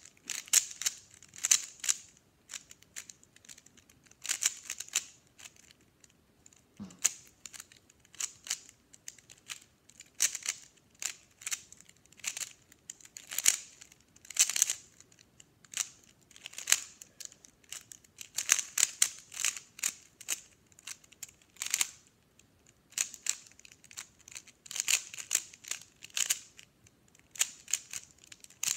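Plastic 3x3 Rubik's cube being turned fast in a speed solve: quick runs of clicking and clacking as the layers turn, in bursts with short pauses between.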